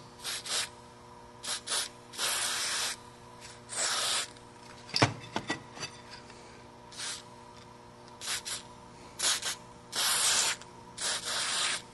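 An aerosol can of dry film lubricant sprayed in a series of short hisses onto the springs and cam arms of a CVT drive clutch. Most hisses are brief, a few last up to about a second, and there is a light click about five seconds in.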